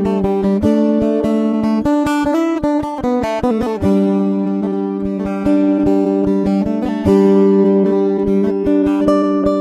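Background music with plucked guitar notes and a steady rhythm of short strokes.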